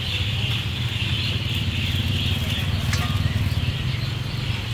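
A steady low engine drone, even and unbroken, with a constant hiss above it.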